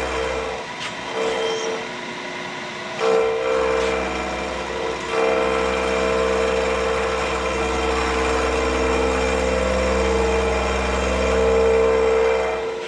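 Milling machine running with a steady hum and whine while a carbide cutter takes a light pass across welded cast iron. The sound eases off about half a second in and picks back up at around three seconds.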